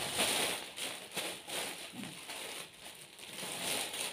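Shiny plastic wrapping rustling and crinkling as it is handled and folded.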